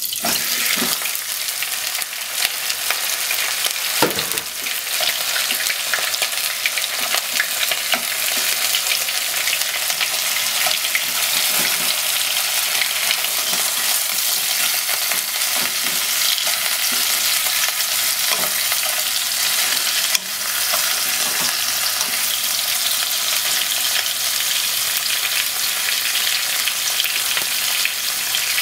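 Sliced chicken frying in melted butter in a pot, sizzling steadily as wooden chopsticks turn it. A few knocks in the first few seconds as the chicken is tipped in from a bowl.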